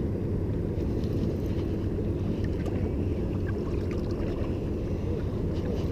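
Steady low rumble of a fishing boat's motor running, with wind on the microphone.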